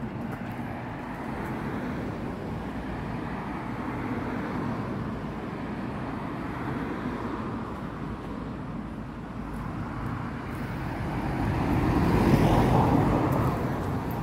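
A road vehicle passing along the road: its noise swells up, loudest about twelve seconds in, then fades, over a steady outdoor background hum.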